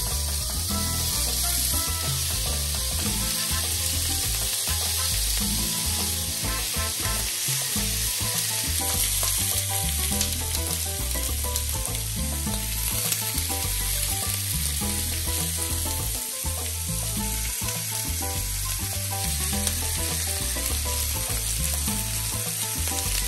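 Bacon strips and halved garlic cloves sizzling steadily in a ridged grill pan heated on maximum.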